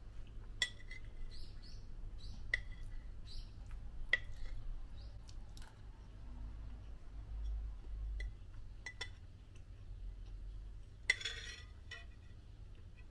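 Metal spoon clinking and scraping on a ceramic plate: sharp single ticks every second or two, with a longer scrape about eleven seconds in.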